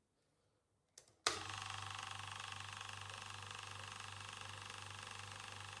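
AERAS 30-litre twin-head oil-free "silent" air compressor switched on at its pressure switch: a click about a second in, then the motor starts suddenly and runs steadily with a low hum, heard from about a metre away.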